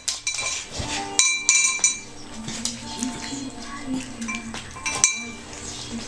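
Metallic clinks and knocks with a short ringing tone, several in the first two seconds and one more near the end, over background music.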